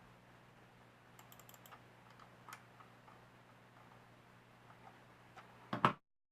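Scattered light clicks and taps of small plastic things being handled, a quick run of them early and a louder clatter just before the sound cuts off abruptly, over a faint steady low hum.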